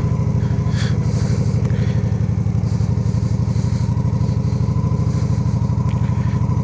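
Heavy motorcycle's engine running steadily at low speed with an even pulsing beat, ridden slowly through soft beach sand.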